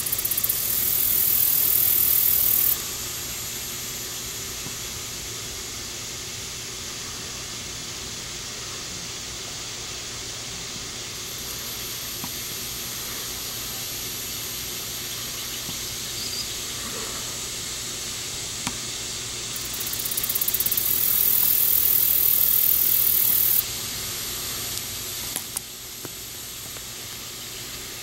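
High-pitched insect buzzing that holds steady throughout. It grows much louder twice for a few seconds, at the start and again later, and each time cuts off abruptly.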